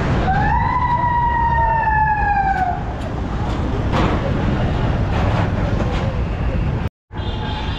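A long vehicle horn blast of about two and a half seconds, its pitch dropping slowly as it sounds, over steady rushing wind and road noise. The sound cuts out briefly near the end.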